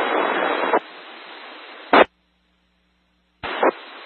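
Hiss from an amateur radio FM repeater channel between transmissions: loud static for the first second, then quieter hiss ending in a short squelch-tail burst about two seconds in. The channel goes dead silent for over a second, then the squelch opens again with another short burst of noise and the hiss resumes.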